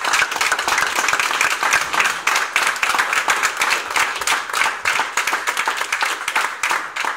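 An audience applauding: dense, steady clapping from many people.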